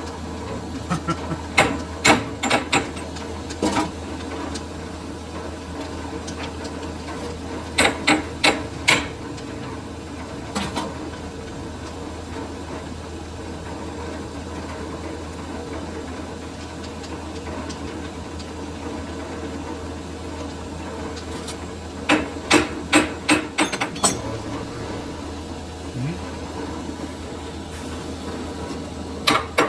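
Hammer blows on metal in short runs of several quick strikes, with long gaps between, over a steady machine hum.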